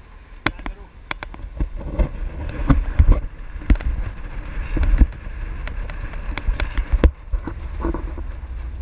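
Wind buffeting a camera microphone aboard a sailing yacht under way, a heavy low rumble broken by many sharp knocks and clicks.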